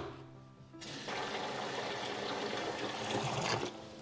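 Tap water running steadily while leunca (pea eggplant) berries are washed. The water starts about a second in and stops shortly before the end.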